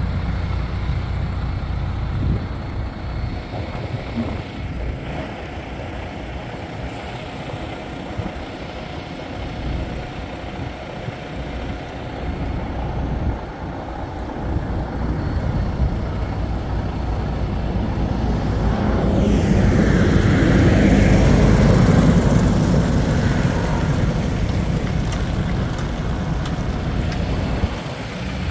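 Steady rumble of a vehicle driving on a snow-covered highway. A louder rushing noise builds for a few seconds about two-thirds of the way in, then eases off.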